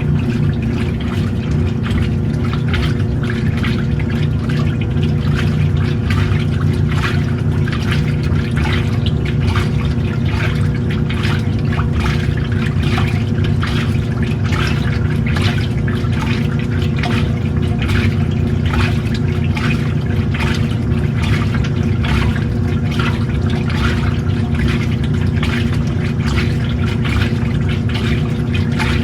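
Washing machine running steadily with water sloshing in the tub over a low motor hum.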